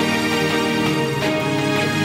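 Background music: a steady instrumental track with sustained pitched notes.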